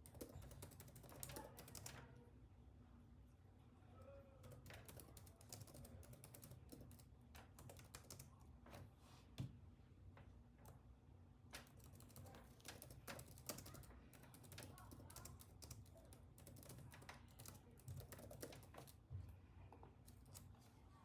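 Soft typing on a computer keyboard: quick runs of key clicks broken by short pauses.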